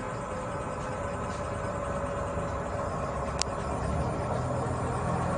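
An engine running steadily at idle, a constant hum, with a single sharp click about three and a half seconds in.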